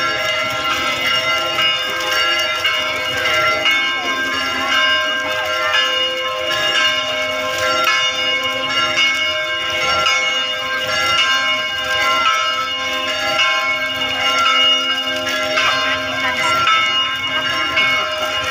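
Church bells ringing continuously, many overlapping ringing tones sustained throughout, over the murmur of a large crowd.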